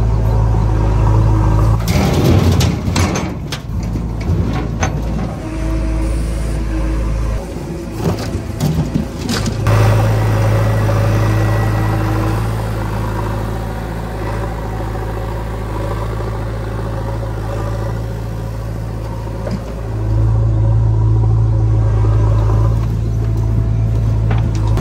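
JCB 3DX backhoe loader's diesel engine running steadily, easing off mid-way and picking up again under hydraulic load about twenty seconds in. There are bursts of clatter about two seconds in and again around eight to ten seconds, as soil and clods drop from the bucket into a steel tractor trolley.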